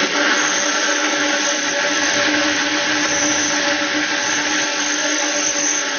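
Large stainless-steel industrial blender running steadily at speed: a continuous motor whine with the whirring of the blades and contents in the jar.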